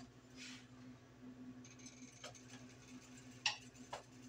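Spoon knocking lightly against a metal pot a few times while fishing pasta out of the boiling water, the loudest knock about three and a half seconds in, over a low steady hum.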